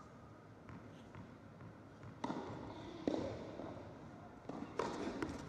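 Tennis ball thuds on a carpet court, echoing in a large indoor hall: faint ticks at first, then several sharper knocks in the second half.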